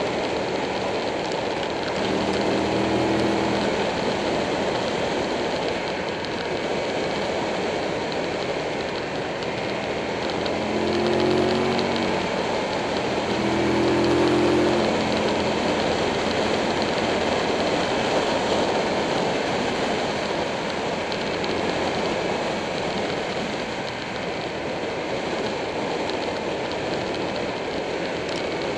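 Buell 1125R motorcycle riding at speed through bends: a loud, steady rush of wind and road noise with the V-twin engine note coming up over it a few times, loudest about fourteen seconds in.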